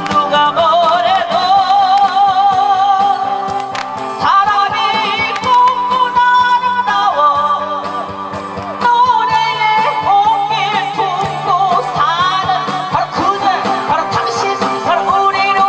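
A woman singing into a handheld microphone over an amplified backing track, her sustained notes wavering with a strong vibrato.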